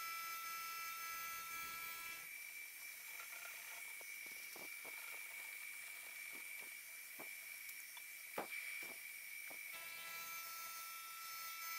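Milling machine running with a faint, steady whine while a 1/8 inch end mill cuts the shoulders of a heat-treated Damascus steel knife blade. About two seconds in the whine drops away and the cutter gives a scatter of short, sharp ticks, the loudest about eight seconds in. The whine returns near the end.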